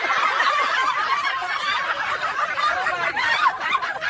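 Several people laughing together, many chuckles overlapping without a break.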